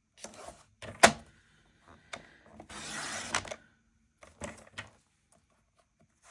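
Cardstock being handled and lined up on a paper trimmer, with a sharp click about a second in. About three seconds in comes a rasping stretch of under a second, the trimmer's blade sliding through the cardstock, ending in a click, and a few lighter clicks follow.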